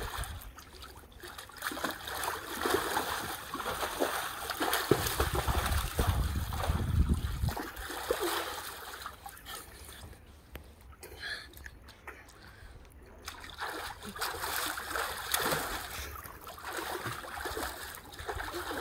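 Pool water splashing and sloshing in irregular bursts as a child plunges under and moves about in a small above-ground pool. A low rumble for a couple of seconds about five seconds in.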